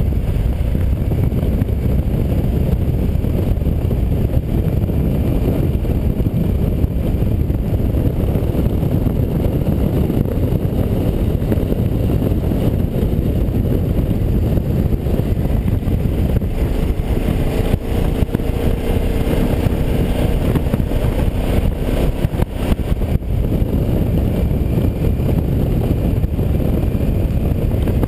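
KTM 990 motorcycle cruising at steady road speed, its engine running under a continuous rush of wind over the helmet-mounted microphone. A faint steady hum joins in for several seconds past the middle.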